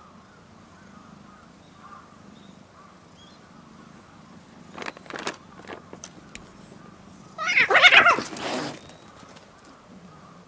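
Stray cats squabbling over food: a loud, wavering cat screech lasting just over a second late on, after a few scattered knocks and rustles.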